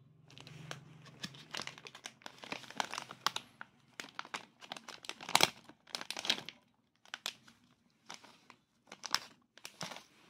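Plastic snack bag crinkling and rustling in the hand as it is handled and shaken, in a series of uneven bursts, the loudest about halfway through.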